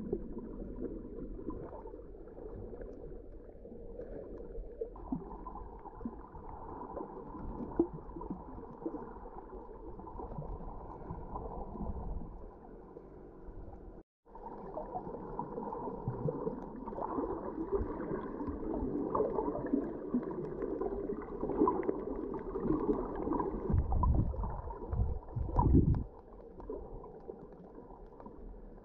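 Muffled underwater sound picked up by a GoPro in its waterproof housing: water sloshing and gurgling against the camera, dull and lacking any highs. It drops out for an instant about halfway, and there are a couple of heavier low surges near the end.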